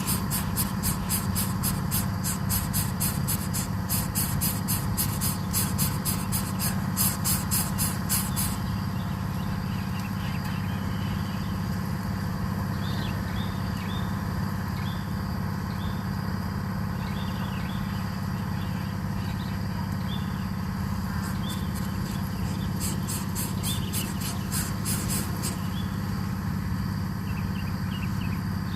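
Outdoor ambience: a steady low hum throughout, with fast, even, high-pitched insect-like pulsing for the first eight seconds and again briefly near the end. Faint short bird chirps come in between.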